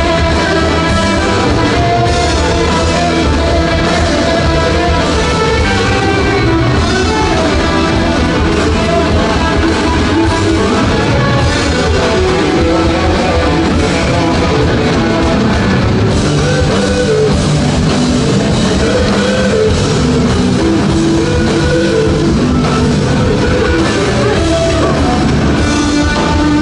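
Live rock band playing loudly and without a break: electric guitars, bass guitar and drum kit, heard from the audience.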